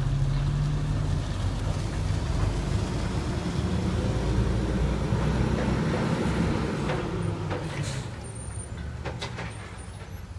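Waste Management garbage truck's engine running as the truck drives away down the street, steady at first and then fading over the last few seconds as it moves off.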